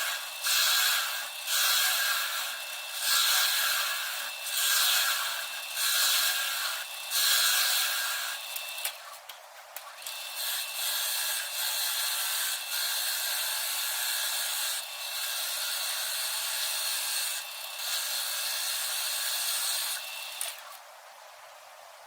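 Wood lathe running with a steady whine while a turning tool or sandpaper works the spinning padauk, wenge and maple shifter-knob blank. The cutting noise swells and fades in repeated passes about once a second, then runs more steadily, and drops away near the end.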